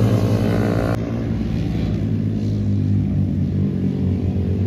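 Vehicle engine running. Its rising pitch breaks off abruptly about a second in, and it then runs at a steady, low pitch that wavers slightly.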